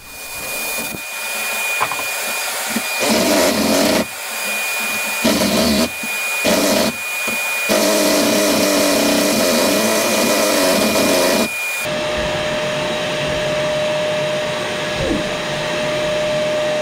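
Cordless jigsaw with a 10 TPI blade cutting through fibre-cement board and the chipboard beneath, in several bursts with short stops, over the steady hum of a dust-extraction vacuum on a hose. The blade struggles and is quickly blunted by the fibre-cement. The cutting stops about twelve seconds in, leaving the vacuum hum.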